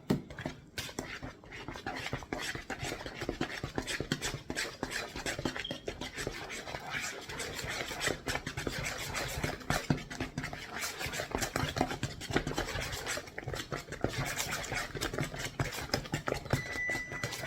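Banana bread batter being mixed by hand in a bowl: fast, continuous scraping and clicking of the utensil against the bowl.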